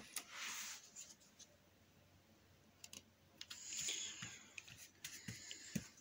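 Faint scratchy swishes of acrylic paint being spread on canvas, in three short spells with a pause of about two seconds in the middle, and a few small clicks.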